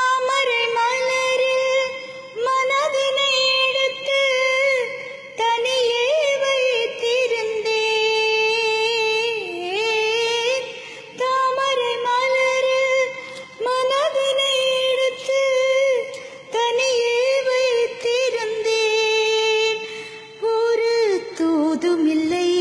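A woman singing a slow melody in long, wavering held notes, in phrases of about two seconds with short breaks between.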